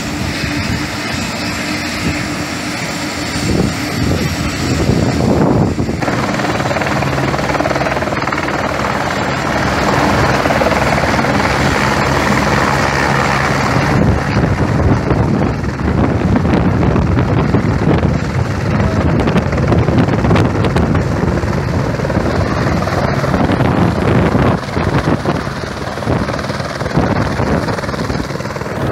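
Helicopter rotor and turbine engine running, loud and steady.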